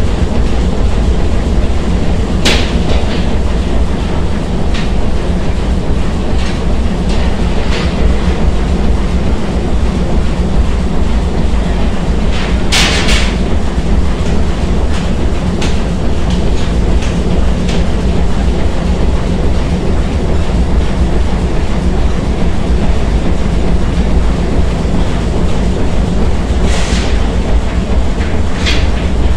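TSS Earnslaw's triple-expansion steam engines running, a loud, steady rumble of reciprocating machinery with an even, rattling beat. A few brief, sharp bursts of noise cut through it about 3 s and 13 s in and again near the end.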